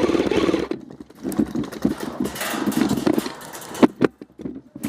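Airsoft gun firing a rapid full-auto burst, a fast even rattle that stops under a second in. Scattered sharp clicks and rustling follow.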